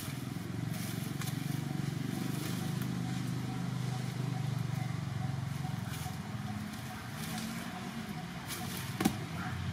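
An engine running steadily with a low hum. There is a single sharp click about nine seconds in.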